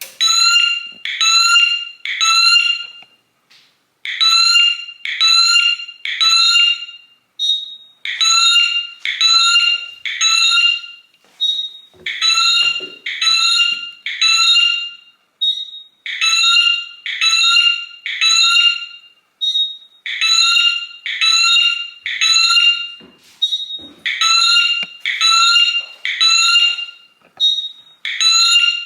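Cheap Chinese-made fire alarm siren sounding in a code 3 (temporal-three) pattern: three short high beeps, a pause, and again, about every four seconds. A faint high steady tone fills the gaps between the groups.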